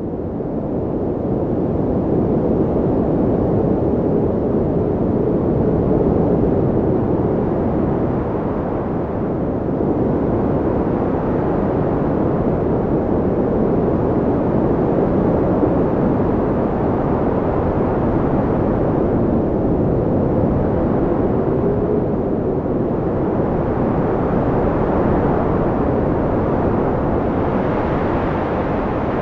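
Strong wind buffeting the phone's microphone: a loud, steady low rumbling noise that swells and eases slowly, fading in at the start.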